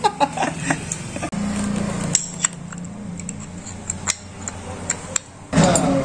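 Workshop background: a steady low hum with scattered sharp clicks and taps.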